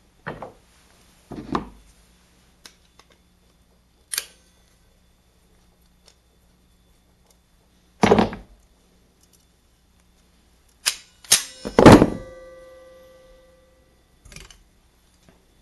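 Metal tools and parts being handled and set down on a workbench: a series of separate knocks and clunks, the loudest near the end with a metallic ring that dies away over about two seconds.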